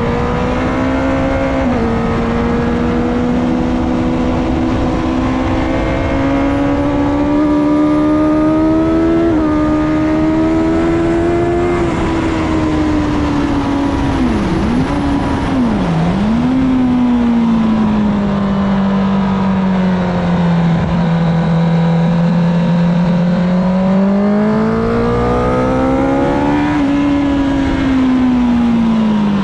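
2008 Honda CBR1000RR's inline-four engine at track speed, heard from on board over a rush of wind noise. Its pitch climbs under acceleration and steps at gear changes. It dips sharply twice about halfway through, then rises once more and falls away near the end as the bike slows.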